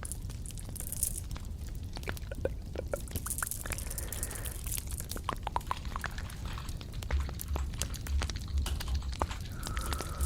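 Close-miked ASMR trigger sounds: a scatter of soft clicks and small wet taps and crackles, with a faint low hum underneath.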